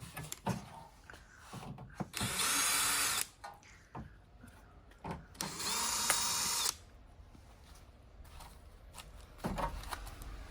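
Power screwdriver running twice, about a second each time, backing out the screws that hold the display's AD board, with small knocks of parts being handled in between.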